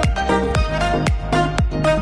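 Background electronic dance music with a steady kick-drum beat, about two beats a second, under a melody of held notes.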